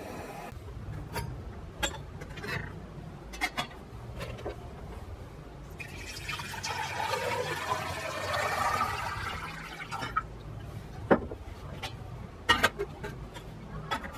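Water poured from a glass pitcher into a brass samovar, running for about four seconds in the middle. A few sharp metallic clinks follow near the end as the samovar's top is fitted on.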